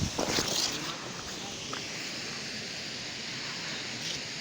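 Steady rushing of a waterfall, with a brief louder burst of noise in the first second.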